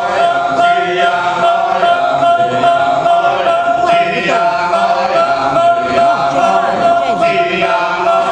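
Kecak chorus: a large circle of men chanting the fast, interlocking "cak-cak" rhythms of the Balinese dance-chant, with a steady held note running through the dense chatter.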